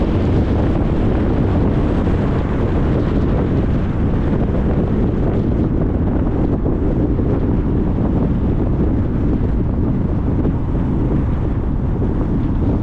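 Steady road noise of a car driving: tyres on the road and wind rushing past, a dense, unbroken low rumble.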